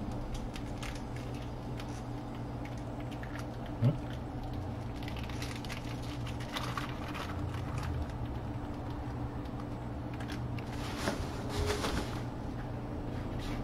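Paper towel rustling as a raw steak is unwrapped and handled, over a steady low hum, with one short thump about four seconds in.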